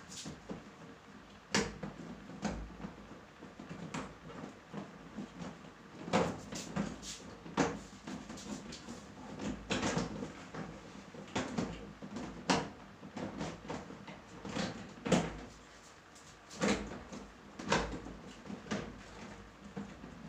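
Hard plastic parts of a plastic storage cabinet knocking and clicking irregularly as they are pushed and fitted together during assembly, with scraping between the knocks.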